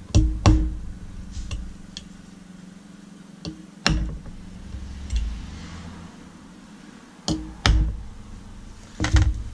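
A nail being hammered into the lid seat of a metal paint tin to punch drain holes: sharp metallic strikes, mostly in pairs about half a second apart, over a steady low hum.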